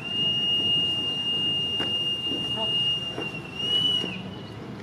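A whistle blowing one long, steady, high note for about three and a half seconds, which then rises slightly and wavers briefly before it stops.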